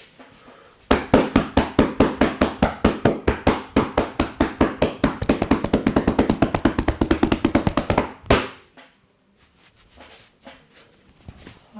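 Rapid percussive massage strikes with the hands on a person's back, an even run of sharp slaps at about seven a second lasting some seven seconds and ending with one more single strike.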